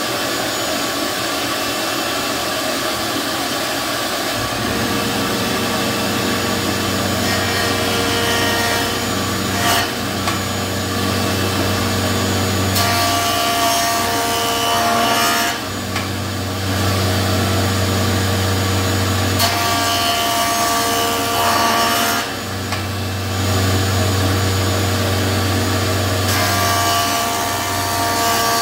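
Delta jointer running, its cutterhead planing the edge of a board fed across it in repeated passes, with a heavier, lower cutting sound during each pass.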